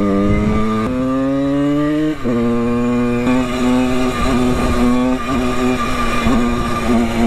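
Simson moped's two-stroke single-cylinder engine under way: it revs up and shifts up twice, the pitch dropping sharply about a second in and again about two seconds in, then holds a steady pitch while cruising.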